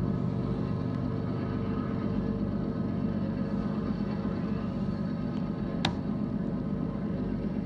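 Empty intermodal freight train rolling past with a steady low rumble of wheels on rail, and a single sharp clank about six seconds in.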